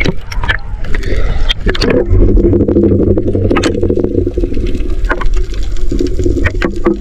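Sea water splashing and bubbling around a camera at and just below the surface, then a steady low droning hum through the water from about two seconds in, dipping briefly near six seconds, with scattered clicks.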